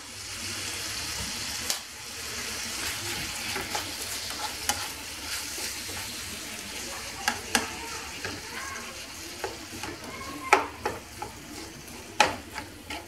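Minced beef and onion sizzling in a frying pan while a plastic spoon stirs them, scraping the pan and knocking against it every few seconds. The sharpest knocks come near the end.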